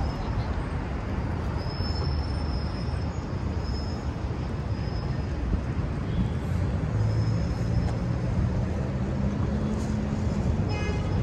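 City street traffic: a steady low rumble of cars and buses passing, with a few faint high whines here and there.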